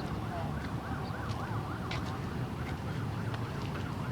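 An electronic siren or alarm warbling rapidly up and down, about three to four sweeps a second, over a steady low rumble.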